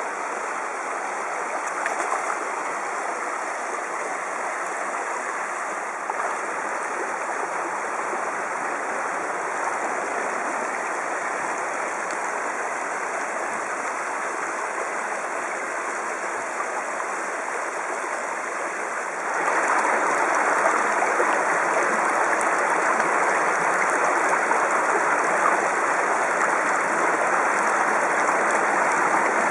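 Shallow creek running over stones and gravel: a steady rush of moving water that gets noticeably louder about two-thirds of the way in.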